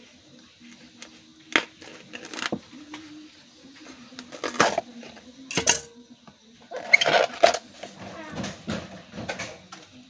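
Knife cutting and tearing the tough, fibrous outer sheaths off a fresh bamboo shoot: a handful of sharp scraping rips at irregular intervals, with a denser flurry about seven seconds in.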